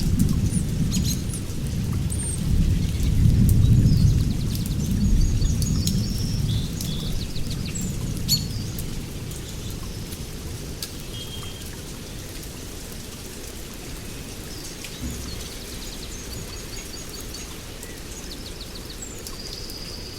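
Heavy rain falling steadily, with a long roll of thunder in the first eight seconds or so that then dies away. Birds chirp throughout.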